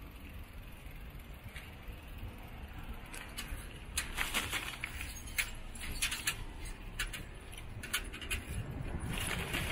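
A steady low rumble with irregular light clicks and rattles that start about three seconds in and grow busier toward the end.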